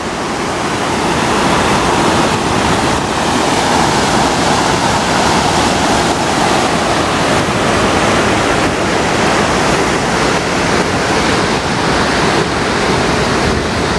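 Floodwater of a wadi in spate rushing steadily over the stones of a shallow, rocky riverbed.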